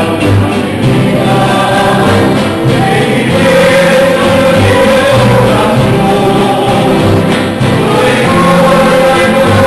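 Mariachi band singing and playing: several voices singing together over a strummed guitarrón and guitars.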